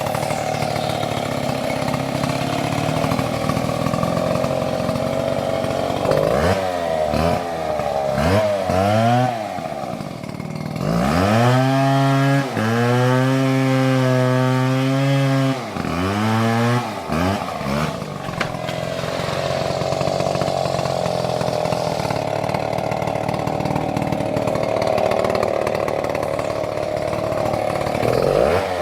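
Stihl two-stroke chainsaw cutting into a tree trunk under load, then revved up and down out of the cut: a few quick throttle blips, a few seconds held at high revs, more blips, then back into the cut at the steady lower note. It revs up again right at the end.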